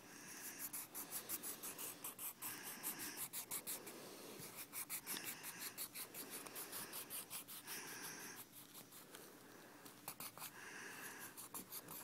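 Colored pencil scribbling rapidly back and forth on paper, several soft scratchy strokes a second, as an area of the drawing is filled in with color.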